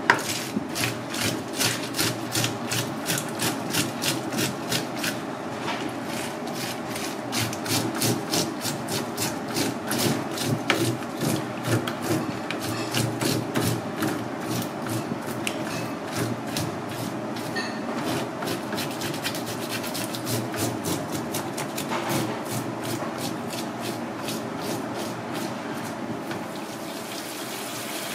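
Metal-toothed fish scaler scraping the large scales off a whole fish in quick repeated strokes, roughly two or three a second. Near the end a kitchen tap starts running over the fish.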